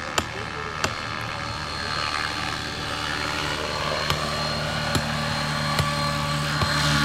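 Electric scale RC model helicopter flying past, its rotor and motor whine growing louder as it comes closer. Sharp ticks sound about once a second throughout.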